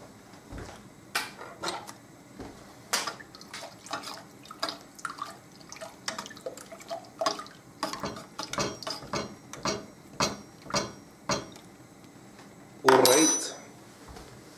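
A spoon clinking and knocking against a pot of water and chicken stock as it is stirred to dissolve the powder, irregular strikes about every half second, then one louder clatter near the end.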